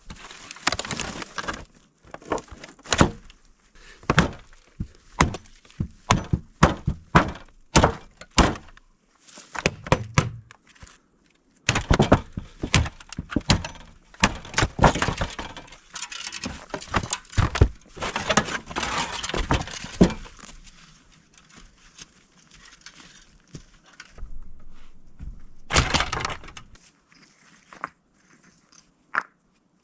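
Wood being broken by hand: a long run of irregular sharp cracks and snaps, several in quick clusters, with a quieter spell past the two-thirds mark and a last loud snap near the end.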